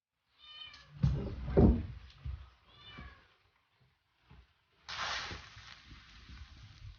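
A young cat meowing twice, amid strong wind: heavy low buffeting that is loudest about a second or two in, and a rushing gust from about five seconds in.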